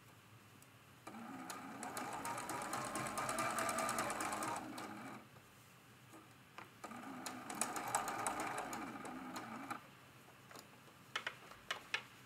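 Sewing machine stitching a seam in two runs of a few seconds each, with a short pause between them while the fabric is repositioned. A few sharp clicks come near the end.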